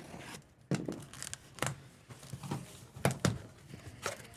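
A cardboard shipping case being opened and handled by hand: cardboard rustling and scraping, with several sharp knocks as the flaps and the boxes packed inside are moved.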